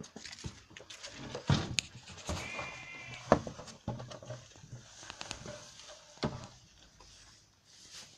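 A sheep bleats once, about two seconds in, over the rustling of hay and knocks of a plastic feed tub being handled at feeding time.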